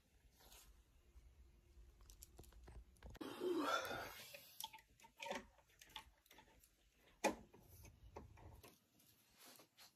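Quiet room with faint rustling and handling noises as someone moves in bed while holding the phone. The loudest rustle comes about three to four seconds in, and a single sharp click follows a little after seven seconds.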